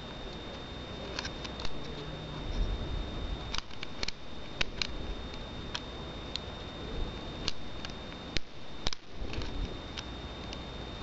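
Small metal clicks and scrapes of a mini Phillips screwdriver working a stubborn screw into a hard drive caddy, in an irregular series of sharp ticks.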